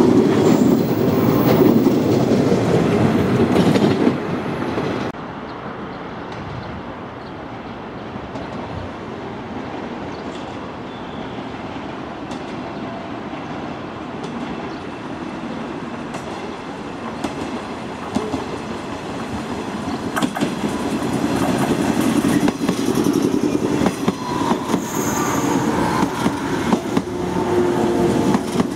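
JR Kyushu 415-series electric multiple unit trains running on the rails. A loud passing train cuts off suddenly about five seconds in; then a quieter rumble builds as a train approaches, growing louder over the last ten seconds with rapid clicking of the wheels over the rail joints.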